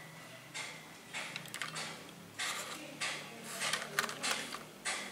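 Fingers handling miniature porcelain tea set pieces in a plastic tray: a string of short rustling scrapes, with a couple of light clicks of the tiny china pieces about four seconds in.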